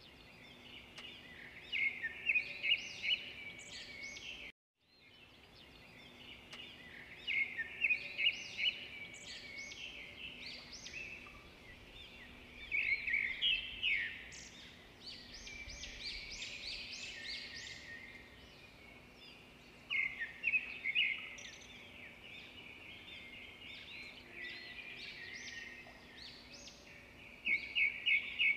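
Birds chirping in clusters of short, quick chirps that come back every several seconds. The sound cuts out briefly about four and a half seconds in.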